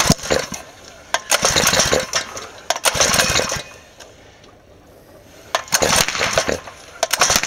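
Small single-cylinder four-stroke engine run on hydrogen (HHO gas) being pull-started over and over: short bursts of cranking about every second and a half, with sharp knocks, and it does not catch and run. The owner blames ignition timing set too early, so the spark stops the piston before top dead centre.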